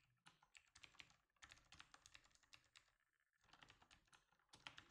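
Faint computer keyboard typing: a quick run of key clicks with a brief pause a little past the middle.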